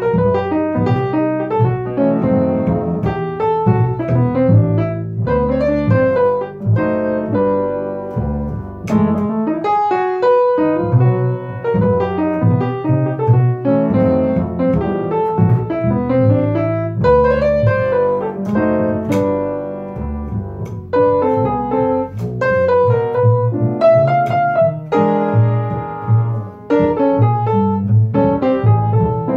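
Acoustic piano and plucked double bass playing jazz together, the piano carrying a busy line of chords and runs over the bass notes.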